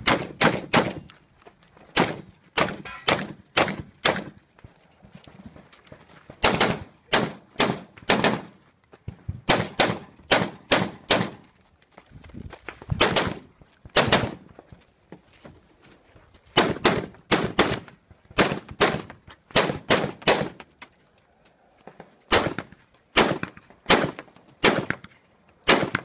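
Gunshots from a competition long gun fired in rapid strings of several shots each, with short pauses between strings as the shooter moves between positions.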